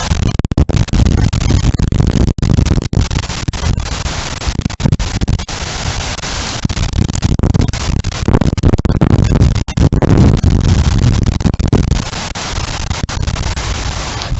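Loud gusting wind of a severe rain and windstorm buffeting the microphone: a heavy low rumble with a hiss over it that swells and eases.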